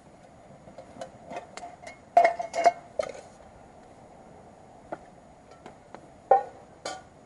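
Stainless steel camping mug and cookware clinking as they are handled, each clink ringing briefly; a cluster of clinks comes about two seconds in and two more near the end.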